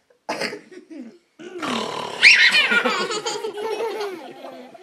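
A young child laughing: a short burst, then a long bout of laughter that starts with a high squeal about two seconds in and breaks into quick pulses.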